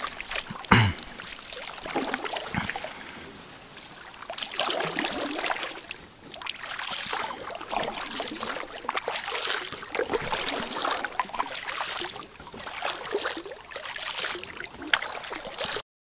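Paddle strokes in the water from a packraft: repeated swishes and splashes every second or so, cutting off suddenly just before the end.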